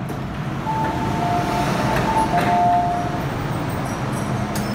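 Metro Cammell M-Train of Hong Kong's MTR running in the tunnel, heard from inside the car as a steady rumble of wheels on rail. About a second in, two faint steady high tones sound together for about two seconds.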